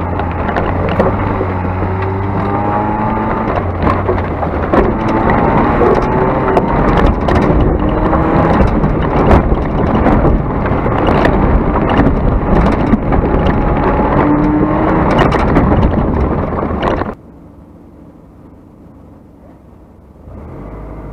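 Car engine heard from inside the cabin, revving hard with its pitch rising and falling under hard driving on dirt, over frequent sharp clicks and knocks. About 17 seconds in it cuts off suddenly to a much quieter low hum, which starts to rise again near the end.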